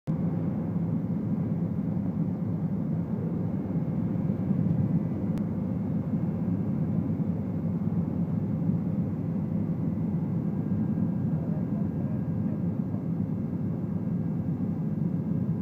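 Helicopter cabin noise in flight: a steady low rumble of the engine and rotor, with a faint steady whine above it.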